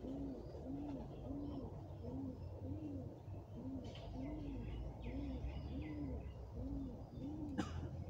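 A dove cooing: a steady run of short, soft coos, each rising and falling in pitch, about one and a half a second. Small birds chirp faintly at a much higher pitch in the middle, and there is one sharp click near the end.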